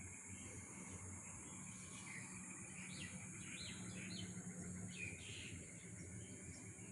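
A steady high insect drone and a faint pulsing insect trill, with a bird giving a handful of short chirps in the middle, over a low steady rumble.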